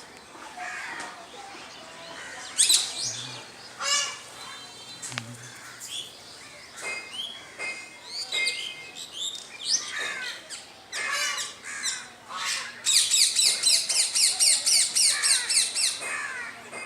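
Birds chirping and calling: many short, sliding high calls, then a fast run of rapid repeated chirps for about three seconds near the end.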